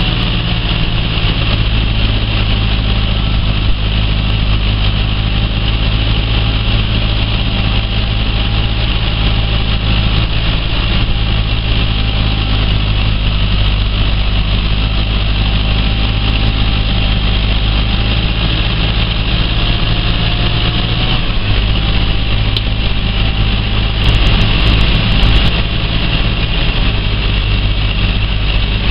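Massey Ferguson 4245 tractor's diesel engine running steadily under load, heard from inside the cab while pulling a harrow-smoother over a tilled field. The engine note shifts slightly about two-thirds of the way through.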